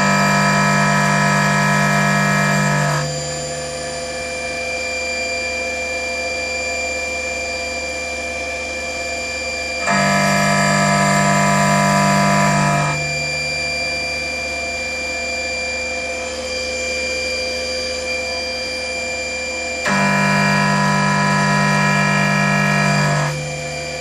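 CNC milling machine with an end mill cutting into a metal block. The loud, pitched cutting sound comes in three passes of about three seconds each, about ten seconds apart, and the spindle runs steadily between them.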